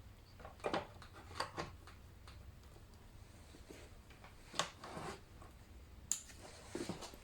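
Scattered light clicks and taps at an irregular pace over a faint steady low hum.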